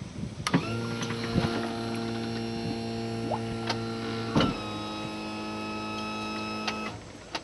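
Steady electric buzzing hum, with a few clicks over it. It shifts slightly in pitch about four and a half seconds in and cuts off near the end.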